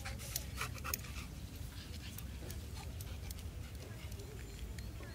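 A dog's paws pattering on asphalt as it trots up: a scatter of faint, irregular clicks over a low steady rumble.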